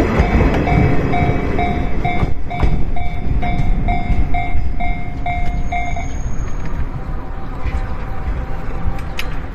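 Level-crossing warning bell ringing about three strikes a second, then stopping about six seconds in. Under it, the rumble of a passing JR West 103 series electric train fades over the first couple of seconds.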